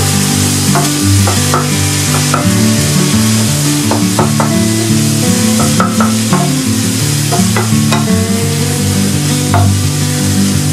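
Tomatoes and scrambled egg sizzling as they stir-fry in a frying pan, with a wooden spatula scraping and knocking against the pan many times. Background music with low held notes plays underneath.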